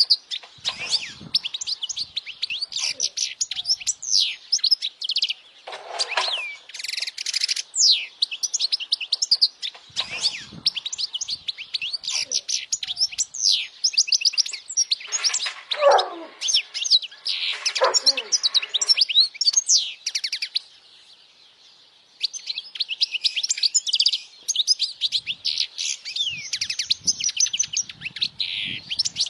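European goldfinch singing: a long, rapid twittering song of quick high chirps, trills and buzzy notes, pausing briefly about two-thirds of the way through.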